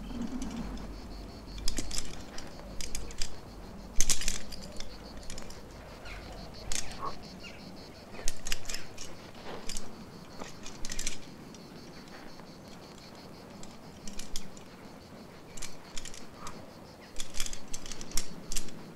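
A rock climber's gear clinking and jangling in irregular sharp clicks: carabiners and quickdraws on his harness and rope, with scrapes of hands and shoes on the rock. A faint steady high whine runs underneath.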